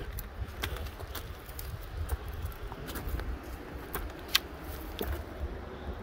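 Footsteps scuffing and crunching on a steep dirt and stone slope, with scattered clicks of loose stones and twigs, the sharpest a little over four seconds in, over a steady low rumble.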